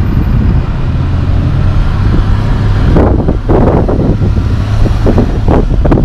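Road traffic at an intersection, with a heavy diesel truck engine giving a steady low drone; from about halfway in, wind gusts buffet the microphone.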